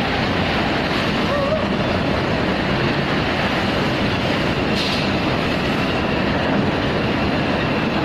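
Steady, loud running noise of a rotary veneer lathe peeling a log, with a short hiss about five seconds in.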